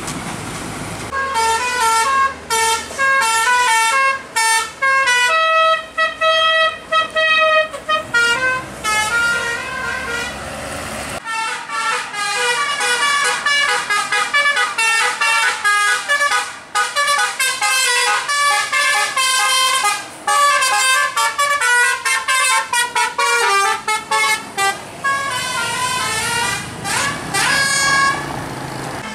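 Basuri "telolet" multi-tone bus horns playing quick tunes, one short note after another in rapid steps of pitch. The run pauses briefly about eleven seconds in, then starts again.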